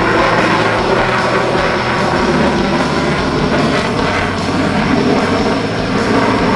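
Rock music with a jet aircraft's engine noise mixed in underneath.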